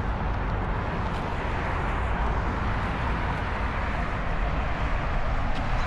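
Steady outdoor background noise: an even low rumble with hiss above it and no distinct events.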